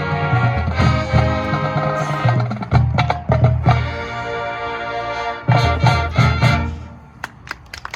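High school marching band playing the closing bars of its show: brass holding full chords over drums and percussion, with a run of loud accented hits near the end. The music drops away about seven seconds in, leaving a few light percussion taps.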